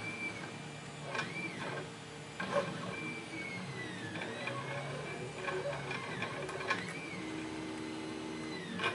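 A metal pick working the pins inside a Lockwood pin-tumbler lock held under tension in a false set: faint scraping and squeaks with a few light clicks, about four in all, as single pins are lifted.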